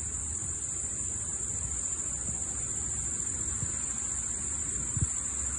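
Steady, unbroken high-pitched insect chorus, with a low rumble underneath and a soft bump about five seconds in.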